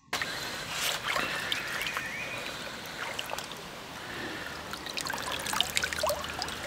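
Water trickling and splashing in a lake margin as a wet carp is lifted out of a soaked sling, with small scattered drips and sloshes.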